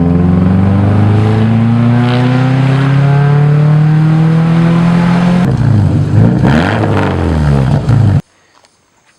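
A car engine running loud under load, its pitch rising slowly as it accelerates, then turning uneven and wavering for its last couple of seconds before cutting off abruptly.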